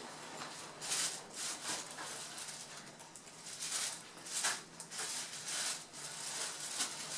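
A nylon backpack being handled: fabric and straps rustling in a string of short brushing bursts.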